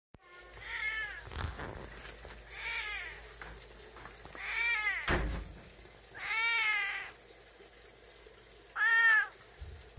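Tabby-and-white cat meowing five times, each meow a short rise and fall in pitch, the last near the end the loudest. A low thump comes about halfway through.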